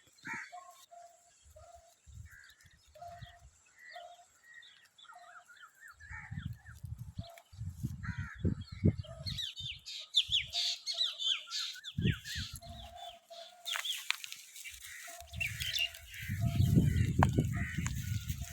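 Birds chirping and calling over and over, with a flurry of quick high chirps about nine to eleven seconds in. Bursts of low rumbling come and go underneath, loudest near the end.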